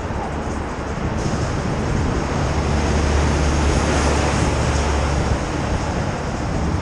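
Wind rushing over a helmet-mounted camera while riding a bicycle, a steady noise throughout. A deep rumble swells for a few seconds in the middle.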